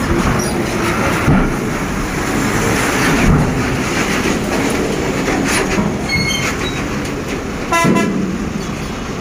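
Truck engines running as loaded lorries drive off a ferry over its steel loading ramp, with a couple of dull thumps as wheels cross the ramp plates. A vehicle horn gives a short toot near the end.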